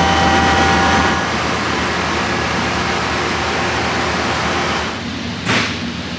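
Metrolink F125 diesel locomotive idling at the platform: a steady engine and fan rush with a high whine that falls away about a second in, leaving the steady rush. A brief rush of louder noise about five and a half seconds in.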